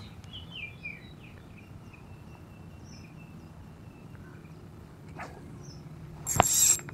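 Quiet pond-side outdoor ambience with a few faint bird chirps in the first second or so. Near the end comes a brief hiss with a sharp click inside it.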